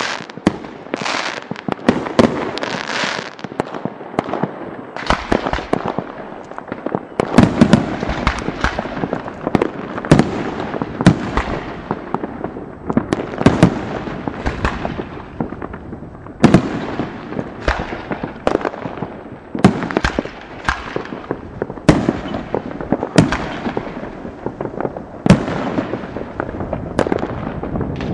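Aerial fireworks bursting in a dense, uneven run of sharp bangs, several a second at the busiest moments, with hardly a gap between them.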